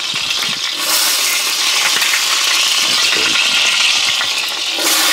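Top round roast searing in hot lard in a pot, the fat sizzling steadily around the meat.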